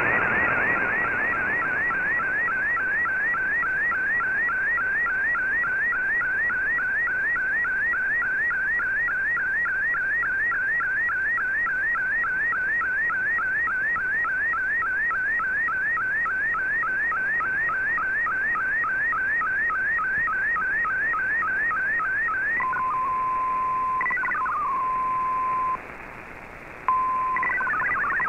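MFSK digital picture transmission on shortwave, received in AM: a fast, repeating sweep of warbling tones, one sweep per image line. About 22 seconds in the sweeps stop and a steady single tone follows, broken by a short gap, before the multi-tone MFSK64 text signal starts near the end.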